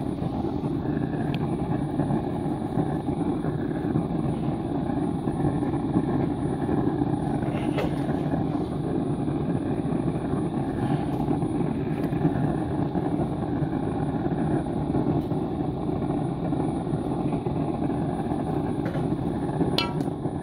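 Steady rushing of an electric blower forcing air into a small homemade furnace that is melting lead, with a few faint clicks.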